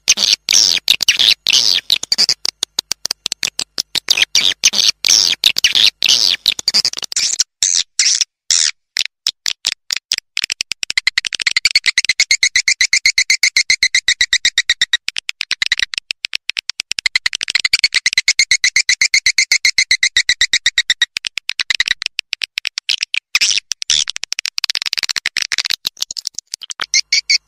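Edible-nest swiftlet (walet) lure calls played from a recording: fast trains of dry clicks mixed with high twittering chirps, in repeating phrases. This is the kind of call track that swiftlet farmers play to draw the birds into a nesting house.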